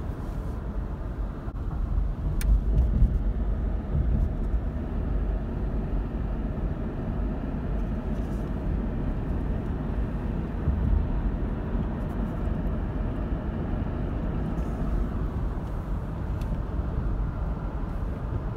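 Steady road and engine noise of a moving car heard from inside the cabin, a low rumble that swells briefly a couple of seconds in.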